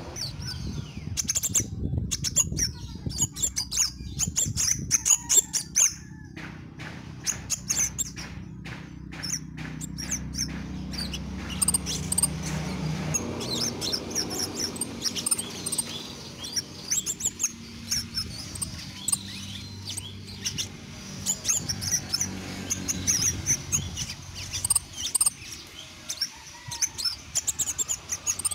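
Caged scarlet minivet (sepah raja) singing in rapid runs of short, high chirps, in bursts with brief pauses between.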